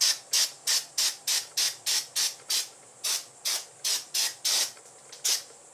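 Aerosol can of brake cleaner sprayed in quick short hissing blasts, about three a second, with one slightly longer blast about four and a half seconds in, stopping a little before the end; it is being used to degrease engine parts.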